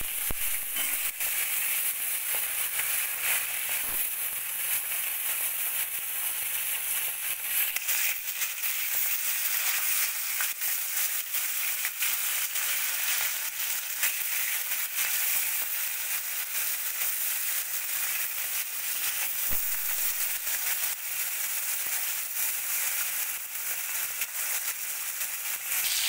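Fish pieces rubbed with salt and turmeric frying in hot oil in an aluminium kadai: a steady sizzling hiss with many small crackles and spits of oil.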